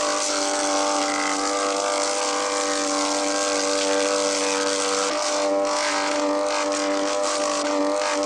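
A steady motor drone, like an engine running at constant speed, used as a comic sound effect for a sleeping man's snoring.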